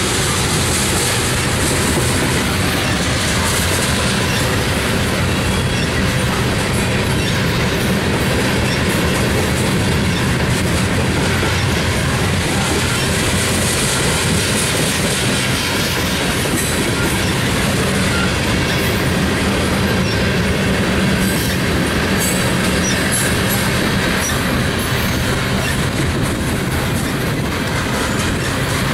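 Loaded freight cars of a unit train rolling past close by: a steady rumble and clatter of steel wheels on rail.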